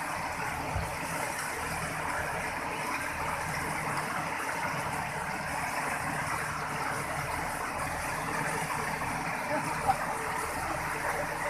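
Rushing floodwater pouring over a rocky riverbed, steady throughout, with the diesel engine of a JCB backhoe loader running low underneath as it wades through the current. One brief knock near the end.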